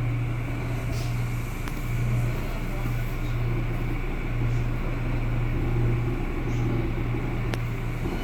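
Inside a moving R179 subway car: a steady low hum that swells slightly now and then, with a few faint clicks.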